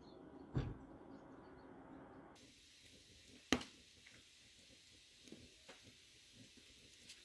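Quiet background with two short, sharp knocks, one about half a second in and a louder one about three and a half seconds in, followed by a few faint ticks.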